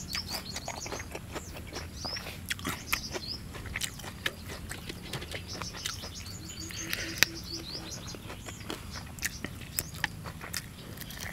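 Close-up eating sounds: small clicks and crackles as crisp-skinned roasted field rat is chewed and torn apart by hand. A bird calls behind it in quick runs of high chirps: near the start, about three seconds in, and again around six to seven seconds in.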